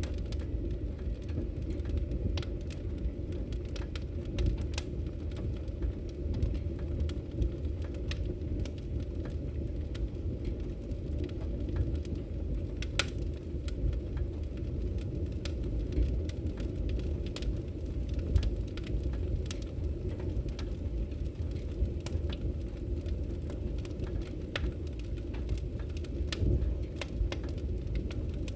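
Wood fire burning in a fireplace: a steady low rumble of flames with frequent small sharp crackles and pops scattered irregularly throughout.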